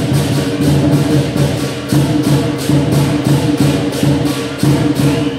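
Lion dance percussion: a Chinese lion drum, gong and cymbals play a fast, steady beat, with cymbal crashes about three times a second over a ringing low drone. It stops at the very end.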